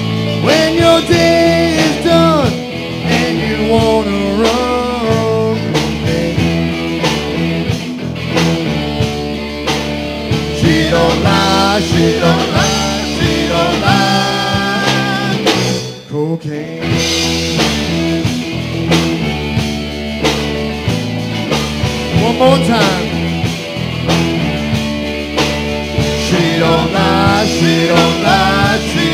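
Rock band playing live: a man sings over electric guitar and the band, with a brief break about halfway through before the music picks up again.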